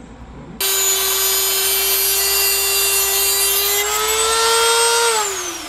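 Handheld rotary tool grinding into a wood screw held in pliers: a steady high motor whine with a harsh grinding hiss, starting suddenly. Near the end the whine climbs a little, then the tool is switched off and winds down with a falling whine.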